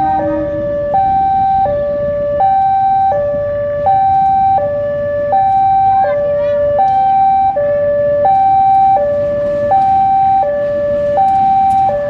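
A two-tone siren alternating steadily between a higher and a lower note, each held about three quarters of a second, over the low rumble of a slow-moving diesel locomotive. A few sharp clicks come in near the end.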